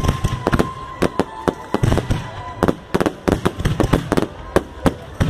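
Firework bangs going off in quick, irregular succession, several sharp cracks a second. A thin, steady whistle runs under them through the first two seconds.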